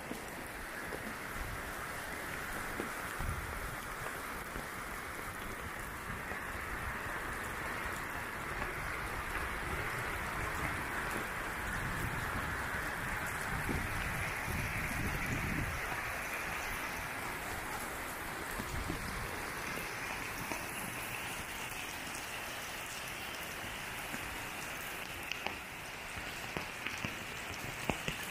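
Rain falling steadily on concrete and muddy ground, an even hiss of drops throughout. There is some low rumbling around the middle.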